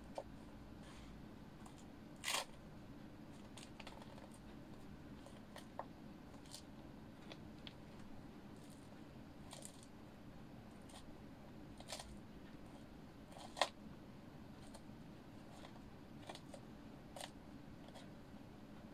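Dry crumbs crunching and crackling under feet in socks on a wooden floor, in scattered short crackles. A louder crunch comes about two seconds in and a sharp one near fourteen seconds.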